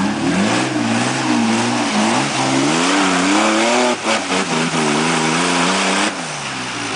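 Single-seat Isuzu Trooper trials vehicle's engine revving hard, revs rising and falling over and over as its tyres spin in mud on a climb. The revs dip briefly about four seconds in and fall back about six seconds in.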